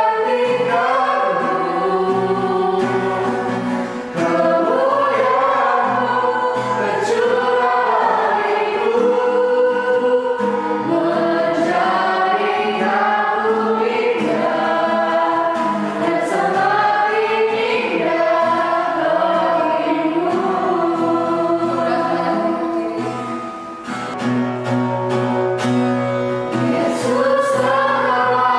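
A choir singing a Christian worship song in Indonesian, many voices together at a steady, loud level.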